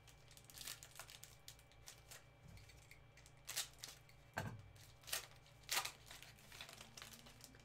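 Plastic wrapper of a baseball card pack crinkling and tearing as gloved hands open it, with a few sharper crackles in the second half.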